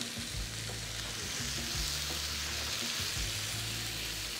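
Chicken and vegetables sizzling in a hot frying pan as spicy sauce is poured in and stirred with a wooden spatula. The sizzle grows louder about a second and a half in.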